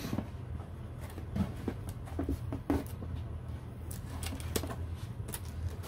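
Styrofoam packing squeaking and rubbing, with scattered rustles and knocks of a small cardboard box being opened and unpacked.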